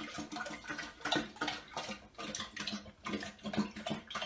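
A dog lapping water from a toilet bowl: quick wet laps and splashes, several a second, over a faint steady hum.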